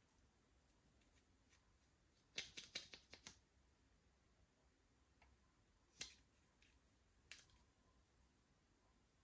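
Slime being mixed by hand, giving faint clicks: a quick run of several about two and a half seconds in, then single clicks about six and seven seconds in.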